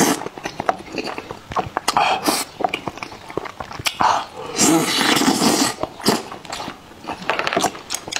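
Close-miked eating of a piece of hot-pot meat dipped in sesame sauce: biting and wet, smacking chewing with many short clicks. There is a longer, louder wet sucking stretch a little past halfway.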